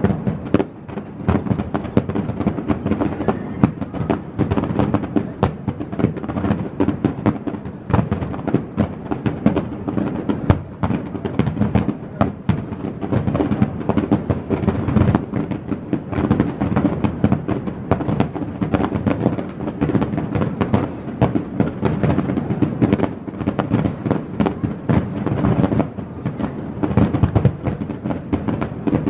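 Aerial fireworks bursting in a rapid, dense barrage: many booms and crackling reports a second.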